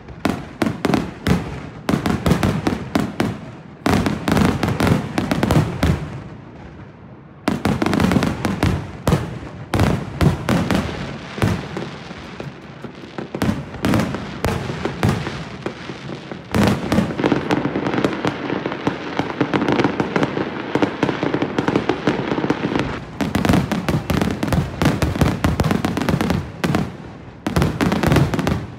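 Aerial fireworks display: rapid, overlapping shell bursts and crackling. There is a short lull about six seconds in, and the firing thickens into a dense barrage toward the end.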